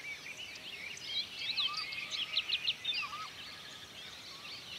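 Birds chirping in a dense chorus of many short, overlapping high calls, with a louder flurry of calls in the middle and a few lower-pitched calls among them.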